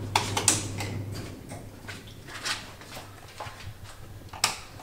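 Scattered sharp clicks of a wall light switch and a door handle being worked by hand, several single clicks about a second apart, the lights not yet coming on. A low hum sounds under the first second.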